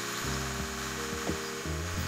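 Dremel rotary tool's cutting disc grinding through the steel casing of an 18650 lithium-ion cell, a steady hissing grind with a faint high whine, mixed with background music.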